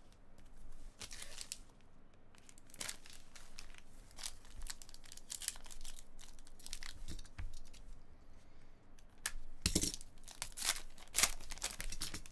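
Trading card pack wrappers being torn open and crinkled by hand, in irregular bursts of ripping and rustling that are loudest near the end.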